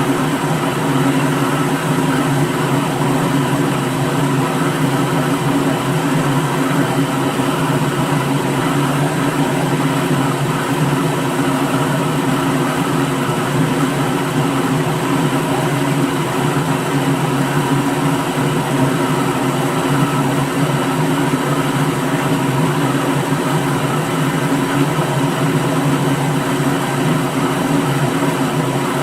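Electric blender running steadily, its motor holding one even speed and level throughout.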